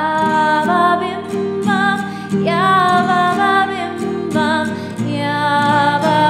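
Music: a voice singing held, wavering notes over strummed acoustic guitar.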